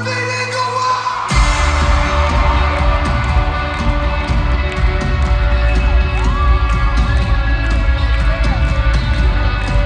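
Live rock band in concert: held chords give way, about a second in, to the full band with drums and bass crashing in loud and steady, while the crowd cheers and whoops.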